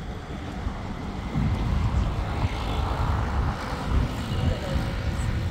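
Wind buffeting the microphone: a gusty low rumble that grows stronger about a second and a half in.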